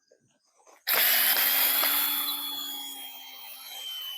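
Cordless drill driving a screw into a tree: it starts abruptly about a second in and runs steadily for about four seconds, its high whine sagging slightly in pitch under load.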